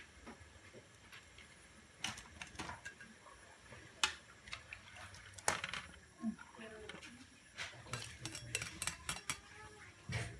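A ladle knocking and clinking against the sides of a metal wok as noodles in broth are stirred: scattered sharp knocks, with a quick run of them near the end.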